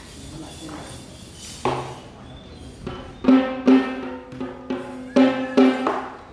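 Traditional Sri Lankan drums played quietly at first, then struck with sharp, ringing pitched strokes. The loudest come in two pairs, one near the middle and one near the end, with lighter strokes between.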